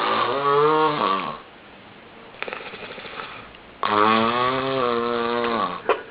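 A sleeping person snoring: two long snores with a clear pitch, the first about a second and a half long and the second about two seconds, each dropping in pitch as it ends.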